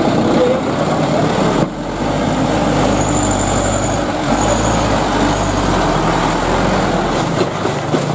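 Diesel engine of a Mitsubishi Canter light truck running steadily under load as the truck crawls through deep mud. There is a brief drop in the sound about two seconds in.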